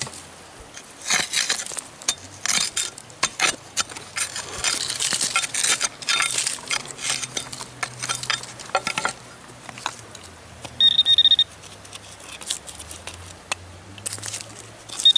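A digging tool scraping and striking into gravelly soil in short, quick strokes, then, about eleven seconds in, one steady high beep from a metal detector as it is swept over the hole.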